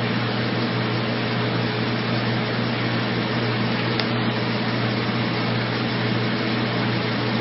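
Steady machine hum and hiss of a fan or air-conditioning unit in a small room, with one faint click about four seconds in.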